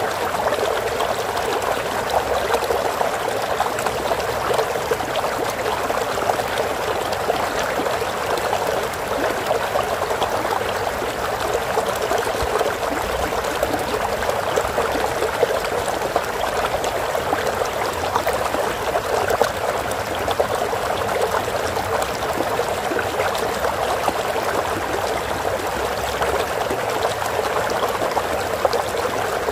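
Running water: a stream flowing and trickling steadily, with a dense, even rush and fine splashing.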